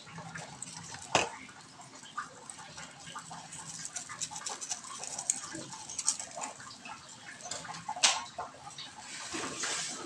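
Kitchen handling sounds: plastic seasoning sachets being snipped open with scissors and emptied into a wok of broth, and a spatula stirring in the wok, with scattered small clicks and two sharper clicks, about a second in and about eight seconds in.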